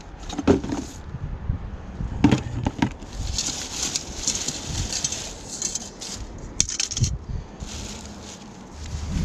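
Rummaging through a pile of discarded junk by hand: a few sharp knocks and clatters, then a stretch of rustling and scraping, and a few more clicks near the end.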